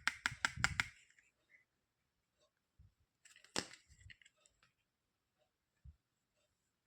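Handling noises from unboxing toys: a quick run of about six sharp clicks at the start, one sharper click with a few small ticks after it about three and a half seconds in, and a soft low thump near the end.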